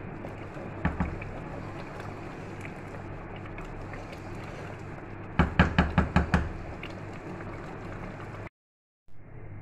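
Pot of mutton and spinach curry boiling hard with a steady bubbling, stirred with a wooden spatula. Two knocks come about a second in, and a quick run of about seven knocks of the spatula against the steel pot, the loudest sound, comes a little past halfway. The sound cuts out for about half a second near the end.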